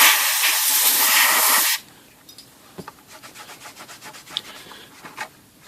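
A burst of compressed air from a blow nozzle hisses loudly for nearly two seconds and cuts off sharply, blowing off an oiled typewriter cover panel. It is followed by faint, repeated rubbing strokes.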